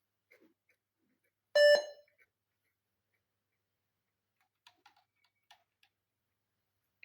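A single short electronic beep about a second and a half in, followed by a few faint clicks.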